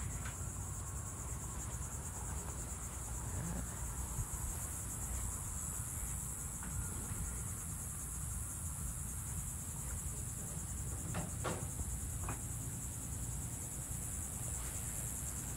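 Steady, high-pitched chorus of insects buzzing in summer heat, with a low rumble underneath.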